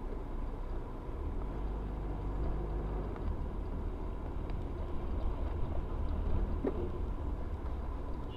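Steady low road and engine rumble inside a car cruising on a highway, with a faint steady high tone running through it.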